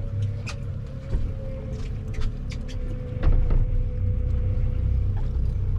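Boat engine running steadily, a low rumble with a steady whine over it, and a few sharp clicks, the loudest about three seconds in.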